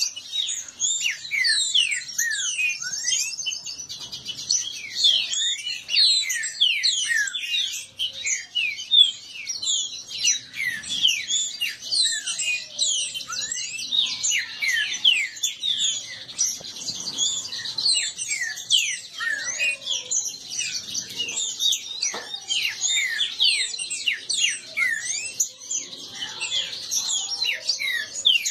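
Green-winged saltators (trinca-ferro) singing fast against each other in a song contest: a dense, unbroken stream of rapid whistled phrases and chirps, many of the notes falling sharply in pitch.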